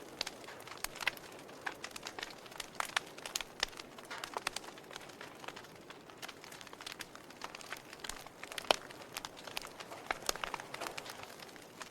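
Wood logs burning in a fireplace, crackling with irregular sharp pops over a soft hiss; one pop, about three-quarters of the way through, stands out as the loudest.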